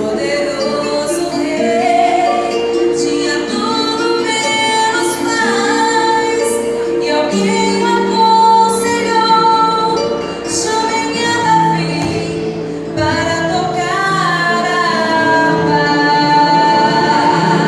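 Church orchestra playing a hymn, with a woman's voice singing the melody over sustained held chords.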